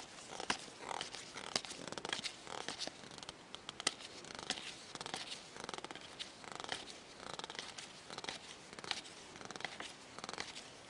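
A stack of glossy trading cards being thumbed through by hand, the cards sliding and flicking against one another in irregular rustles and light clicks.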